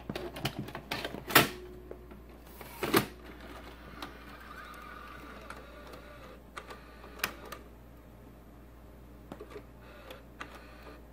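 A VHS cassette pushed into the cassette holder of a Panasonic AG-456 S-VHS camcorder and the compartment snapped shut with a few sharp clicks. This is followed by a faint whir and small clicks from the tape-loading mechanism as it threads the tape.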